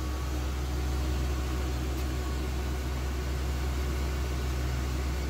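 Motorhome engine idling steadily, a constant low hum.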